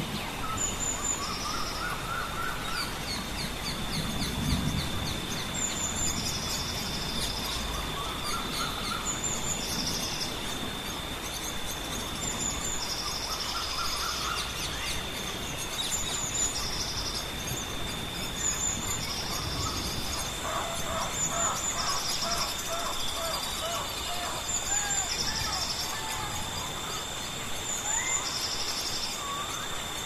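Several birds calling over and over: short high trills every couple of seconds and lower whistled phrases, with a quick run of calls about two-thirds of the way through. Under them a steady high insect drone and an even background hiss.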